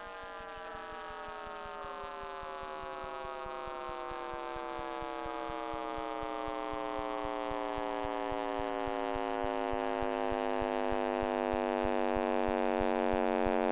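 A synthesized sonification of the Big Bang: a rich, many-toned hum that slowly falls in pitch and grows steadily louder.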